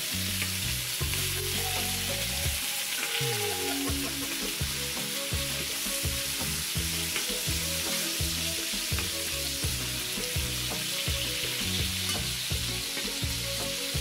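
Mahi mahi fillets, sliced garlic and freshly added butter sizzling steadily in hot garlic olive oil in a skillet, with a spoon moving through the melting butter now and then.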